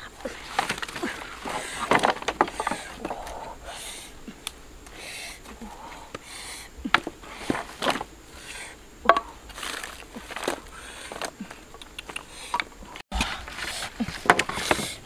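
Dry sticks and branches knocking and clattering against each other and the hearth stones as they are dropped and laid over a campfire: a string of sharp wooden knocks.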